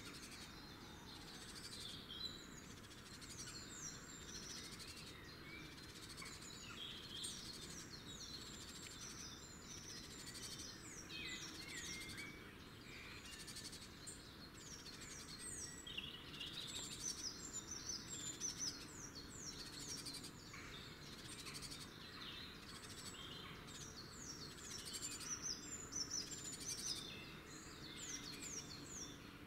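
Small songbirds singing and chirping: rapid runs of short, falling high notes that come in clusters, heaviest from about 16 to 20 seconds in and again near the end, over a steady background hiss.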